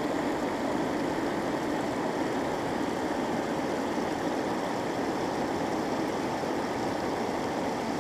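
Water pouring in many thin streams off a long stone wall fountain and splashing into the shallow channel below: a steady, even rush of falling water.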